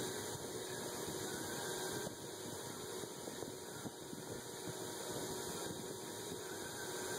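KMG-style belt grinder running steadily, with a steel cleaver blade held against the moving belt and being ground.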